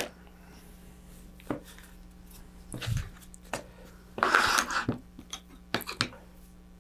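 Hand tools and parts being picked up and set down on a workbench: a few scattered clicks and knocks, a soft thud about three seconds in, and a short rattling scrape a little after four seconds.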